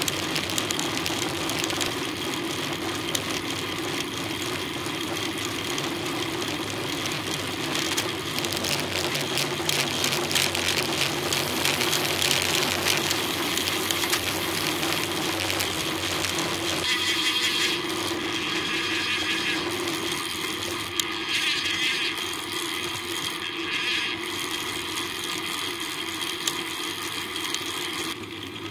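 Steady rushing wind and tyre-on-road noise from a road bicycle being ridden, heard through a bike-mounted camera, with a constant low hum beneath.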